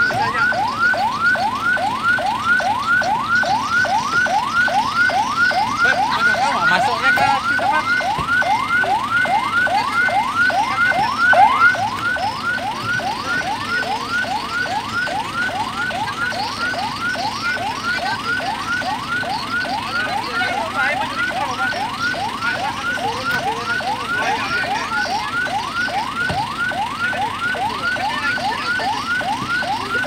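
Ambulance siren sounding in a fast yelp: short rising sweeps repeated about two and a half times a second without a break. A single louder knock comes a little before halfway.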